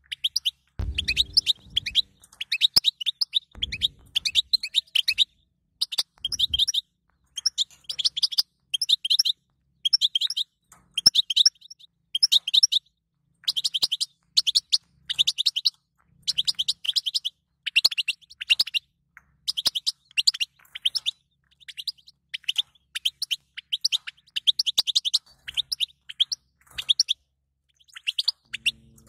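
European goldfinch twittering song: quick chattering phrases of high, fast notes, each about a second long, repeated with short breaks between them. A few low thumps sound in the first seven seconds.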